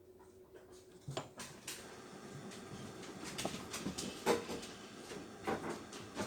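Scattered irregular knocks and clicks, getting louder and more frequent toward the end.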